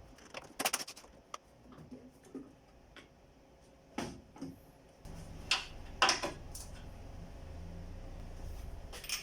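Scattered sharp clicks and knocks of parts and tools being handled in a car's engine bay during engine-mount removal. A low steady hum starts about five seconds in.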